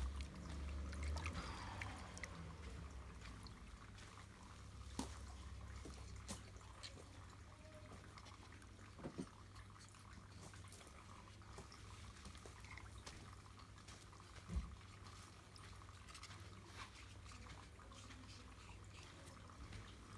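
Faint dry sanding of body filler: a low scratchy rubbing with scattered clicks and a few soft knocks.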